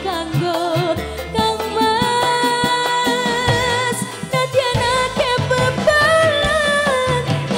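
A woman singing into a microphone over live instrumental accompaniment, holding long notes with a wavering vibrato.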